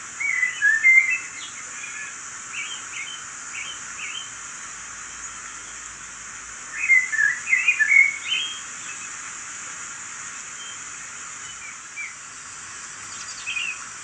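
Recorded birdsong from a waterfall-and-birds relaxation video playing on laptop speakers: quick high chirps over a steady rushing of falling water. The chirps come in a burst about a second in and a denser one around seven to eight seconds, with a few scattered chirps between and after.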